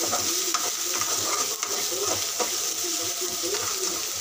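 A metal spoon stirring chicken frying in onion masala in an aluminium kadai: a steady sizzle with scattered clicks and scrapes of the spoon against the pan.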